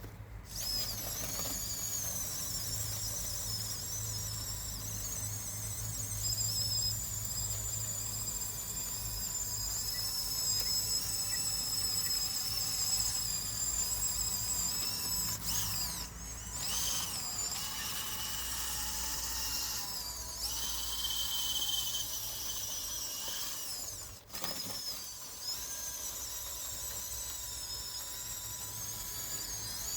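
Electric drive motors and gearboxes of a radio-controlled model bulldozer whining, the high pitch rising and falling as it works, stopping for a moment about three-quarters of the way through.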